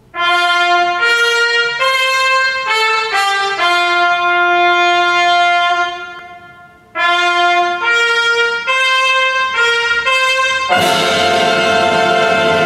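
Recorded music playing through Celestion SL6si bookshelf speakers driven by a Luxman LUXKIT A3500 tube amplifier. A solo brass melody of long held notes fades out about six seconds in and starts again a second later. Near the end a fuller ensemble joins it.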